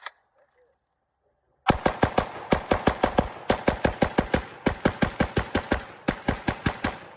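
PSA AK rifle fired rapidly: about thirty shots at roughly six a second, in strings of four to seven with short pauses between them, starting about two seconds in. A short click sounds at the very start.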